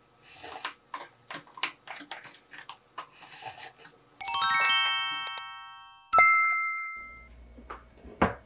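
Wooden spoons scraping and clicking against the insides of bowls, scraping them clean of the last porridge. Then an edited-in chime: a quick rising run of ringing notes, followed by a single bright two-tone ding that fades, and a short knock near the end.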